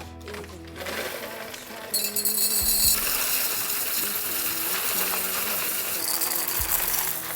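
Blendtec blender running, starting about two seconds in and stopping just before the end.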